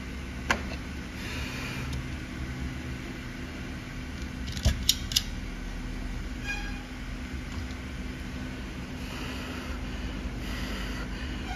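Steady low hum of a fan-driven workbench machine, with sharp clicks of small tools: one about half a second in, and three in quick succession about five seconds in.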